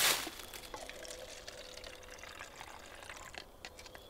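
Apple cider poured from an insulated drink jug into a cup, strongest in the first moment and then a faint trickle.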